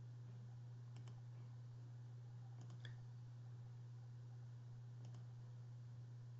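Faint computer mouse clicks, in pairs about a second in, near three seconds and around five seconds, over a steady low hum.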